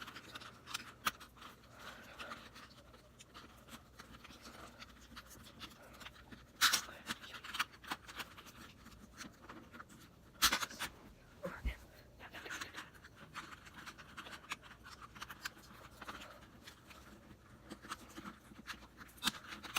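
Plastic Rubik's Cube pieces clicking and scraping as the cube is handled and snapped back together: scattered light clicks, with sharper snaps about a third of the way in and near halfway.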